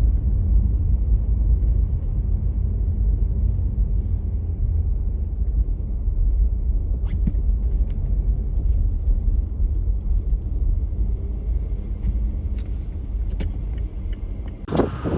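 Steady low rumble of a car driving on a snow-covered road, with a few faint ticks. Near the end a sudden gust of wind hits the microphone.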